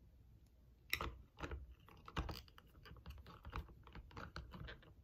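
Small plastic parts clicking and tapping as an action figure is fitted onto its clear plastic display stand. Quiet for about the first second, then a run of irregular small clicks, the sharpest about a second in.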